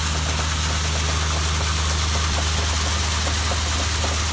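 Oilfield workover rig's engine running at a steady low drone, with a constant hiss of water jetting out around the pipe at the wellhead. The downhole motor and drill bit are being test-run on pumped fluid.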